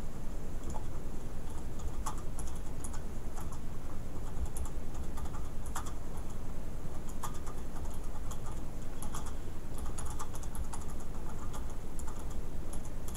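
Typing on a computer keyboard: irregular runs of quick key clicks with short pauses between words.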